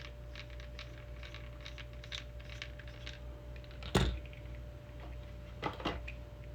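Small plastic clicks and taps from handling and prying apart a small plastic toy gadget, with a louder knock about four seconds in and two close knocks near the end, over a faint steady hum.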